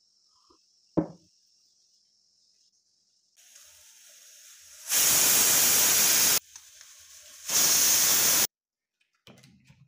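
Aluminium stovetop pressure cooker whistling on a gas flame: steam hissing out past the weight valve, building from a few seconds in into two loud blasts of about a second each, the second stopping abruptly. This is the cooker's first whistle, the sign that it has come up to pressure. A single short knock sounds about a second in.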